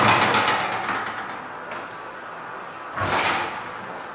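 Motorised glass panels of a station ticket barrier sliding, a whooshing swish with fine rapid clicks that fades over about a second and a half, then a second, shorter swish about three seconds in.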